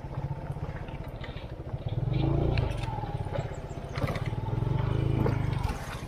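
Motorcycle engine running at low speed as the bike rides into a shallow, rocky river crossing. The throttle opens twice, about two seconds in and again about four seconds in, each time for a second or two.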